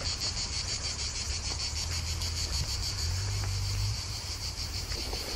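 Chorus of cicadas: a steady high-pitched shrilling with a fast, even pulse.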